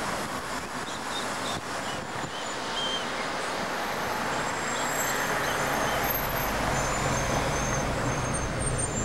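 City street traffic: a steady hiss of passing cars, with a deeper engine rumble from a heavy vehicle building up about two-thirds of the way through.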